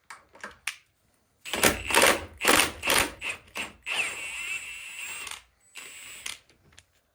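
Metal clinks and clatter of hand tools and transmission parts. A run of quick knocks is followed by a steady rasping stretch of about a second and a half, then a shorter one.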